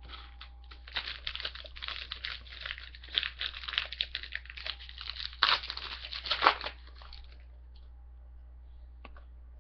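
Foil trading-card pack wrapper being crinkled and torn open: a dense run of crackling and ripping for about seven seconds, sharpest near the end, then it stops.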